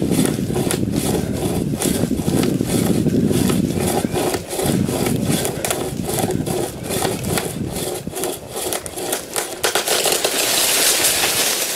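A Sportsman Camo Pocket Chainsaw, a 36-inch hand-pulled chain saw, rasping through a tree limb in rapid, even back-and-forth strokes. About ten seconds in the strokes stop and give way to a steadier rushing noise as the cut-through limb breaks away.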